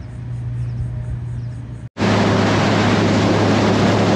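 The steady low drone of a big catamaran's outboard engines passing, heard from the shore. About two seconds in, a hard cut to the much louder rush of a boat running fast over open water: engine hum under heavy wind and water noise.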